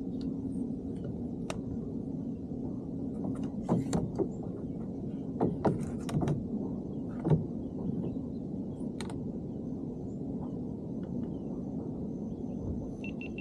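Sharp clicks and knocks of a camera pole and mount being handled in a kayak, bunched a few seconds in with one more near the end, over a steady low hum.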